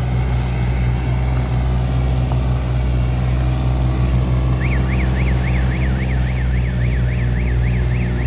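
Heavy farm diesel engine running steadily under load in a harvested paddy field. About halfway through, a warbling electronic tone joins it, rising and falling about four times a second.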